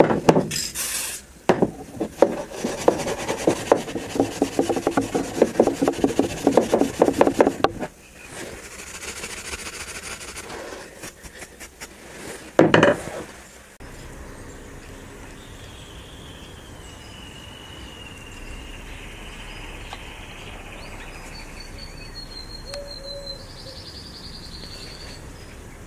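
Fast back-and-forth scrubbing on a hatchet's steel head for about eight seconds, then softer rubbing and one short loud scrape. After that, a quiet steady outdoor background with a few faint high chirps.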